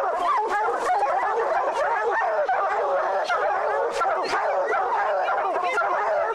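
A pack of bear hounds baying and yelping together, many voices overlapping without a break, at a bear they have treed.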